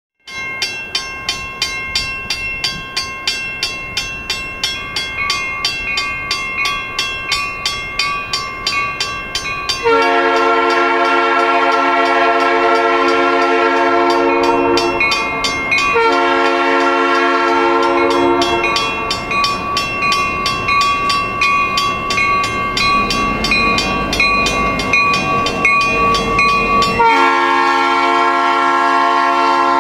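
Grade-crossing warning bell ringing steadily, about three strikes a second, as a diesel locomotive approaches. Its multi-note air horn sounds a long blast about ten seconds in, a shorter one around sixteen seconds, and another near the end. The locomotive's low rumble grows just before the last blast.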